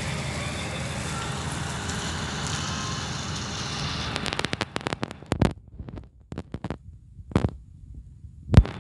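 Steady hiss of heavy rain falling, which drops away about four seconds in. Scattered sharp taps and knocks follow, the loudest near the end.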